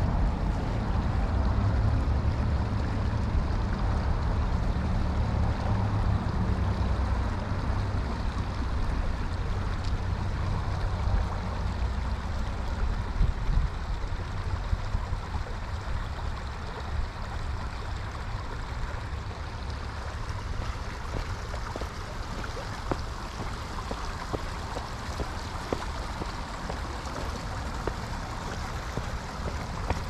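Steady noise of flowing creek water over a low rumble that eases about halfway through, with scattered light ticks.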